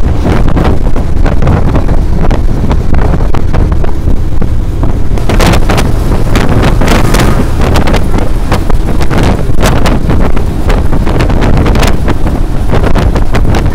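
Wind buffeting the microphone from a vehicle moving at speed, a loud steady low rumble broken by frequent short crackling gusts.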